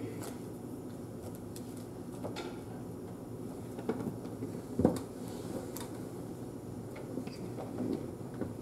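Scattered small clicks and knocks over a steady low room hum, with one louder knock about five seconds in.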